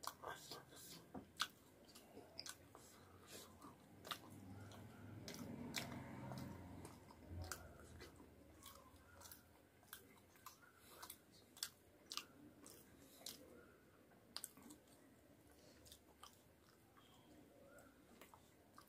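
Faint close-up chewing of soft food, aloo fry with puri, with many quick wet lip and tongue smacks. There is a louder low stretch of chewing in the middle.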